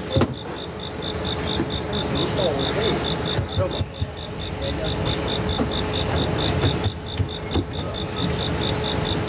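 A cricket chirping steadily, about four high chirps a second, over a low background rumble with occasional knocks.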